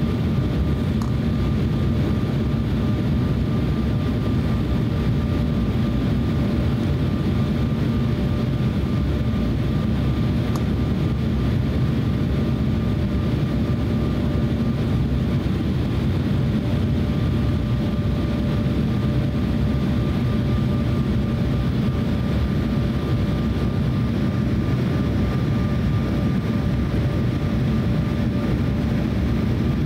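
Steady cabin noise inside an Embraer E170 airliner on final approach: a low rumble of airflow and its two General Electric CF34 turbofan engines, with a faint steady whine running through it.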